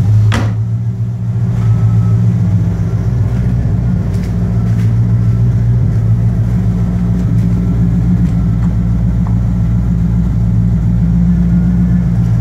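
1986 Corvette's 5.7-litre V8 idling steadily through a Borla cat-back exhaust with stinger tips, a deep, even exhaust note. A single sharp knock sounds about half a second in.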